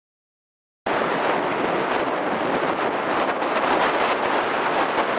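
Strong wind rushing and buffeting over the camera microphone, starting abruptly about a second in and then running on as a steady noise.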